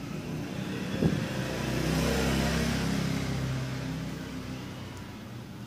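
A motor vehicle passing by, its engine sound swelling and then fading away, with a sharp click about a second in.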